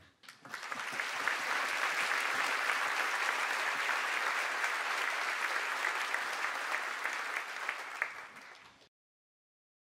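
Audience applauding steadily, dense and even, easing slightly near the end before cutting off suddenly about nine seconds in.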